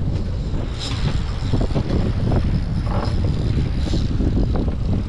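Fishing boat's engine running under way, a steady low rumble with wind buffeting the microphone and a few brief swishes.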